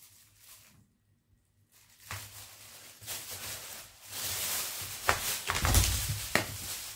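Clear plastic packing bag rustling and crinkling as it is pulled off a plastic dish-drying rack, with a few clicks and a low knock from the rack's plastic frame. It is nearly silent about a second in, then grows louder, loudest near the end.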